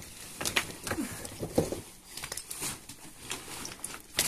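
Cloth rustling with scattered small clicks and knocks as a patterned rug and bedding are lifted and dragged over a gravelly cave floor.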